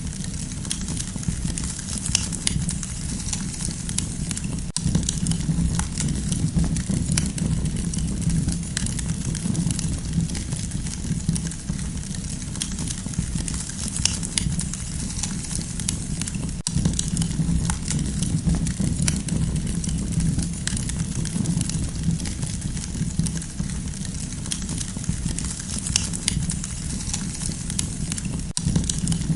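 Campfire crackling steadily, with frequent small snaps and pops over a low, even rumble of the burning fire.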